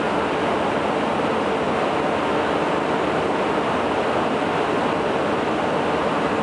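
New ThyssenKrupp escalator running under a rider: a steady, even noise with no clicks or knocks.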